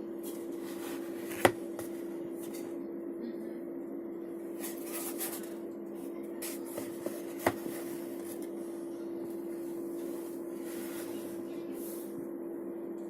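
Two sharp clicks about six seconds apart, with a few faint ticks and rustles between them, over a steady hum.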